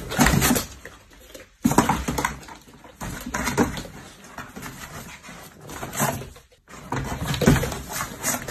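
French bulldog making short, rough vocal noises in about five bursts, one every second or two, as it climbs and paws at a cardboard box.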